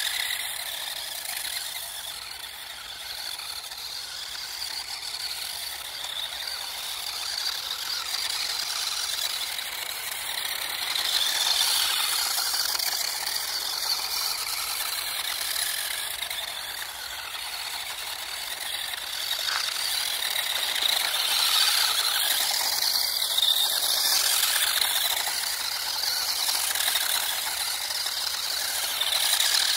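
Small RC drift car running: its electric motor and gears whirring with a hissing, scuffing noise, swelling and fading as it speeds up and slows, loudest around halfway through and again in the last third.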